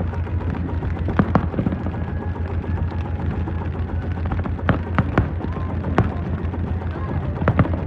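Fireworks bursting with sharp bangs, about seven in irregular succession, two of them close together near the end, over a steady low rumble.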